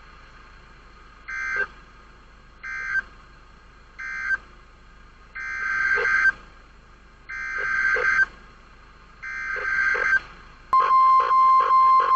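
NOAA Weather Radio digital alert bursts: three short screechy end-of-message data bursts, then three longer data bursts heading the next warning. Then, about eleven seconds in, the loud steady warning alarm tone starts, the signal that a new warning follows.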